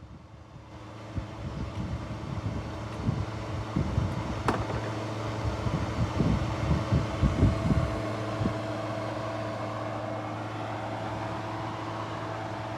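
Car engine running with a steady hum, rising in level about a second in; irregular low thumps go on through the first part, then the engine keeps running evenly.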